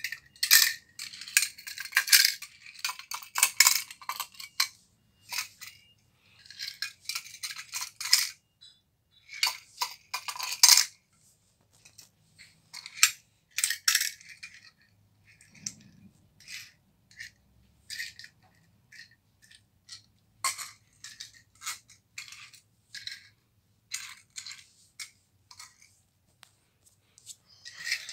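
Small die-cast metal toy cars clicking and clattering against each other and a hard floor as they are handled and set down: dense bursts of clatter for the first ten seconds or so, then sparser single clicks.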